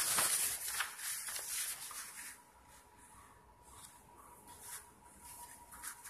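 Sheets of paper rustling and being shifted by hand, with a run of crisp rustles in the first two seconds, then fainter scattered rustles.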